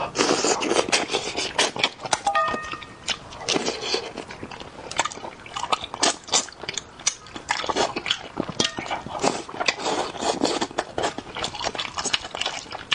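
Close-miked chewing and lip-smacking of a person eating braised fish, a dense run of wet mouth clicks and smacks.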